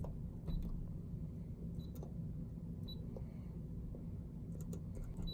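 Schlage electronic keypad lock being keyed in: buttons pressed one at a time, each press giving a short high beep, with a few light clicks between.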